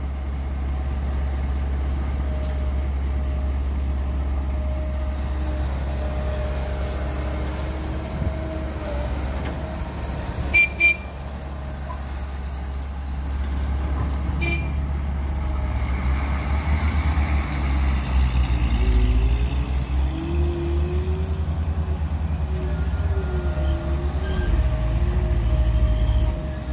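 Diesel engines of a tracked excavator and a loaded dump truck running with a steady low rumble. Twice, at about 11 and 14 seconds, there is a brief sharp sound. In the second half the truck's engine revs up and down as it pulls away.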